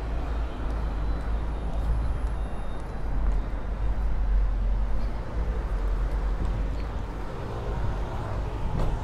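City road traffic: cars, vans and a double-decker bus running past, a continuous noisy hum over a heavy low rumble.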